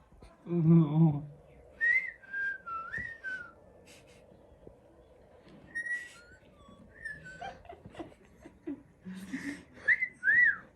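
A series of short whistled notes that glide up and down in pitch, coming in three groups, with a brief low warbling sound about half a second in.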